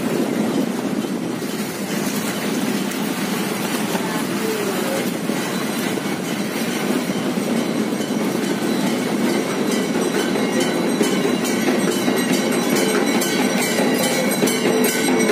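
Steady rumble and running noise of a moving vehicle, growing a little louder near the end.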